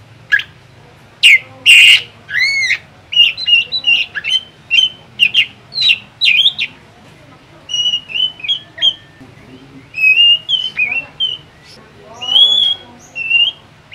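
A caged drongo (srigunting) singing a fast, varied run of loud chirps and whistled notes, many sliding or arching in pitch. Two loud harsh calls come about a second or two in, and the song then goes on in bursts with short pauses.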